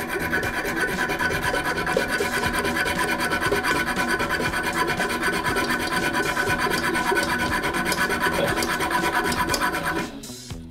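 A saw blade rasps rapidly and continuously as it cuts the excess top off a metal toilet closet bolt at the base of the bowl. It stops suddenly near the end.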